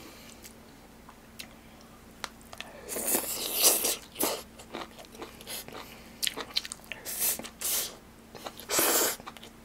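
Close-miked eating sounds: a person biting and chewing a mouthful of rice and side dishes, in short bursts of mouth noise. The bursts start about three seconds in and are loudest near the end.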